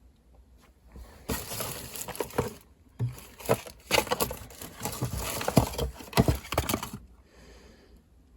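Toiletry bottles and packages being rummaged through and handled, with plastic knocking and rustling in an irregular clatter for several seconds.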